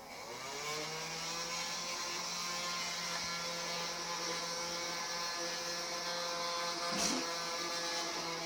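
Battery-powered vacuum cleaner's motor running with a steady whine, rising in pitch as it speeds up at the start and dipping briefly about seven seconds in.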